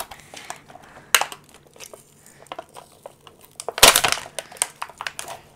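Clear plastic packaging crinkling and crackling as hands pull it off a cardboard box. The crackles come unevenly, with a louder burst about four seconds in.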